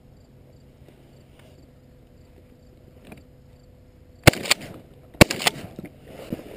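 Two shotgun shots about a second apart, each a sharp crack with a short ringing tail, fired at a passing dove.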